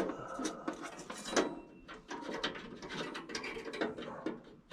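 Irregular small metallic clicks, rattles and scrapes of hand tools and a screw being worked to mount a furnace's hot surface igniter back in place.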